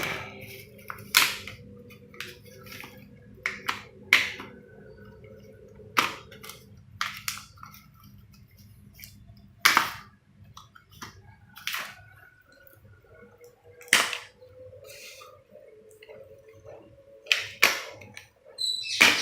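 Irregular sharp clicks and knocks from cat nail clippers being handled, about one every second or two, the loudest near the middle and near the end.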